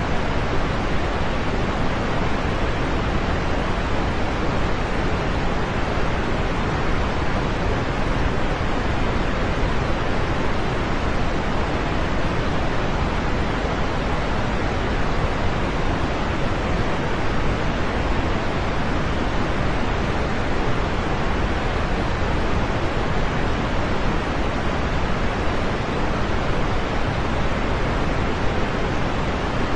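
Steady rain, an even, unbroken hiss with no separate drops or thunder standing out.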